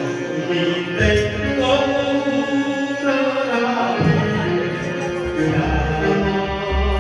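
Devotional kirtan music: singing over sustained instrumental notes, with low drum strokes now and then.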